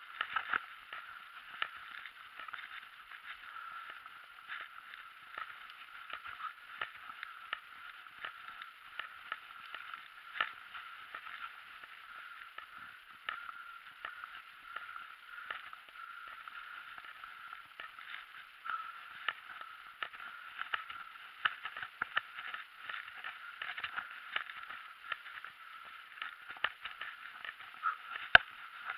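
Muffled steady rushing of a bicycle rolling along a paved road, picked up by a handlebar-mounted camera, with frequent small clicks and knocks from bumps in the road. One sharp knock near the end is the loudest sound.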